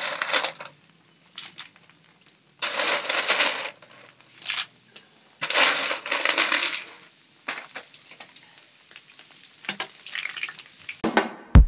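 Crunching and crackling noise in three bursts of about a second each, with scattered light clicks between them.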